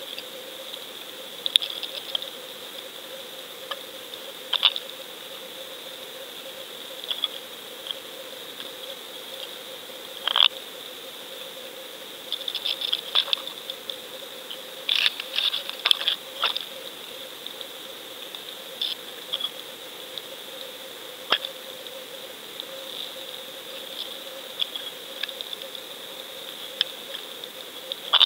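Underwater sound picked up inside a GoFish fishing-camera housing: a steady two-tone electronic hum, with irregular sharp clicks and crackles that come thickest about halfway through.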